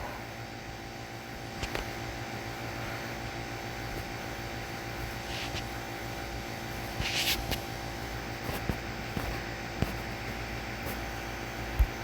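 Steady mechanical hum like a fan or air conditioner, with a few faint clicks, a short rustle about seven seconds in and a soft low thump near the end. No fire alarm sounds.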